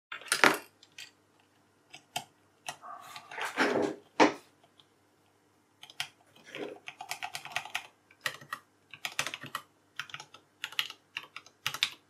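Custom TADA68 mechanical keyboard with lubed vintage Cherry MX Black switches on a stainless steel plate, in an aluminium case, with Signature Plastics keycaps. A few separate clacks and scrapes as a keycap is pushed onto its switch, then quick, steady typing from about six seconds in, the keyboard being tried for feel and sound.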